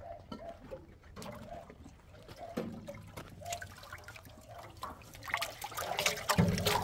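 Water sloshing and trickling inside an old metal barrel as hands stir it, then a wide shallow basin is pressed down into it and water spills and splashes around its rim, growing louder toward the end.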